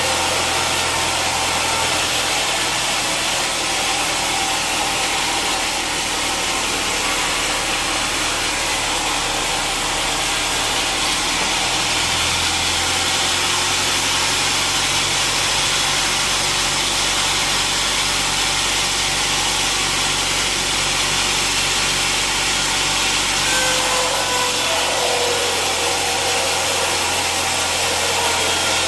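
Sawmill machinery running steadily while sawing an old teak log: the saw and its drive motor, with a short falling whine near the end.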